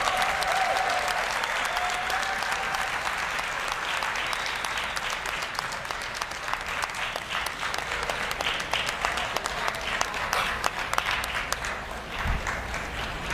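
Large audience applauding steadily, a dense patter of many hands clapping.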